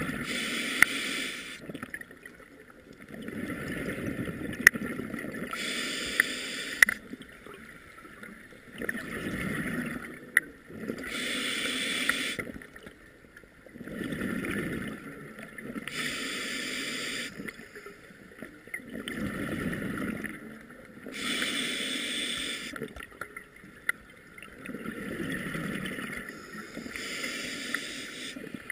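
Scuba diver breathing through a regulator, heard underwater through a GoPro housing: a hissing inhale alternating with a bubbling, gurgling exhale, a breath about every five seconds. A few sharp clicks come in the first ten seconds.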